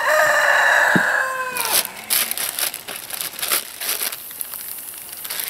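A rooster crows once, a long held call that drops in pitch as it ends, under two seconds in. After it, a thin plastic bag crinkles in irregular bursts as it is worked over a hand.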